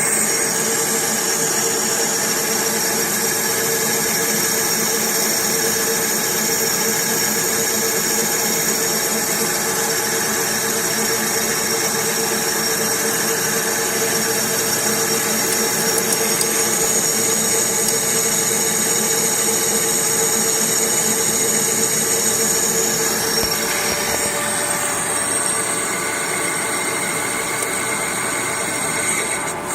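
CNC turret punch press running: a steady mechanical hum with high whines and no distinct punching strokes. The tones change about three-quarters of the way through.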